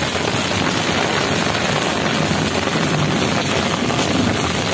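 Heavy monsoon rain pouring down steadily onto a flooded concrete courtyard.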